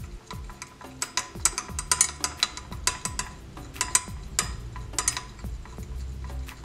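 A stirring stick clicking and scraping irregularly against the inside of a glass beaker, stirring beeswax and oils as they melt in a water bath.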